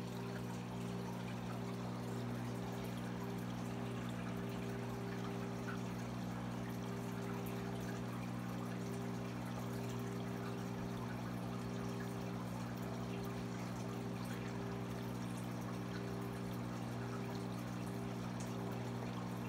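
Reef aquarium running: a steady trickle and pour of circulating water, with a steady low hum underneath.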